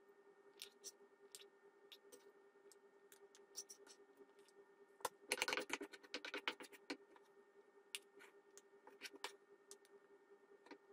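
Wooden spatula and fork scraping and tapping against a non-stick wok and a plastic food container while noodles are scooped out: faint scattered clicks and scrapes, with a louder flurry a little past halfway. A faint steady hum runs underneath.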